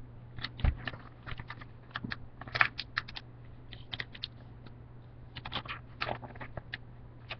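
Sheet of paper being folded in half and creased by hand: irregular crisp crinkles and clicks in small clusters, with a soft thump under a second in and a steady low hum underneath.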